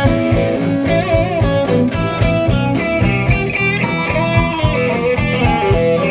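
Live blues-rock band playing: a lead electric guitar with bent, wavering notes over bass and a steady drum beat.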